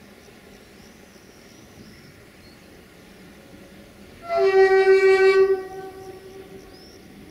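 A train horn sounds one single-note blast about four seconds in, lasting about a second and a half before trailing off, over low steady background noise.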